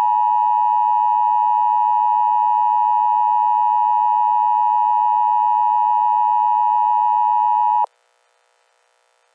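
Emergency Alert System attention signal: a loud, steady two-tone alert tone held for about eight seconds, then cut off suddenly, leaving faint hiss.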